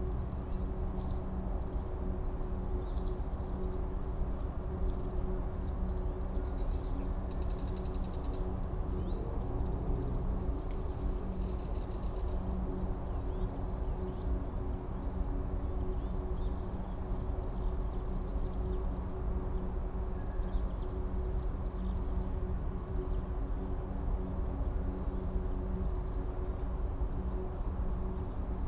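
Dense, high-pitched insect chirring that swells and fades in waves, over a steady low hum and rumble.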